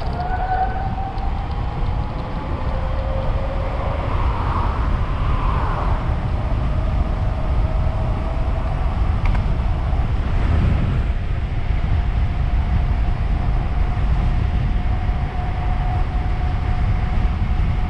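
Wind buffeting the camera's microphone at speed, over the thin whine of the tandem's electric conversion-kit motors, which holds a steady pitch and creeps slightly higher as the bike speeds along.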